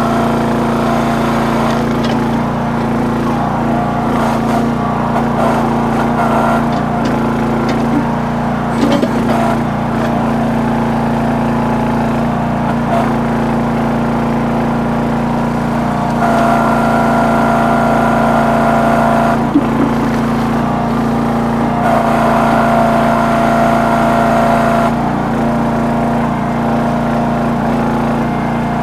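Red Rock / Trencherman towable backhoe's small engine running steadily as it digs. A higher whine joins in twice, for about three seconds each time, in the second half.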